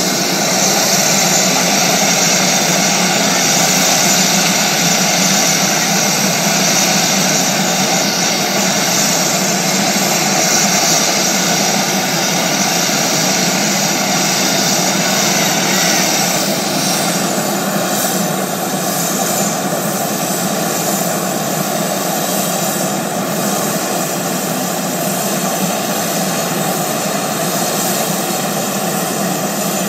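V-22 Osprey tiltrotor running steadily on the ramp, a loud turbine-like hiss and whine with its rotors stopped while the proprotor blades fold. The hiss eases a little about halfway through.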